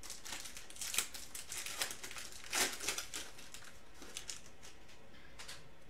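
Foil wrapper of a trading-card pack crinkling and tearing as it is pulled open by hand: a run of short crackles, the loudest about two and a half seconds in, dying away after about four and a half seconds.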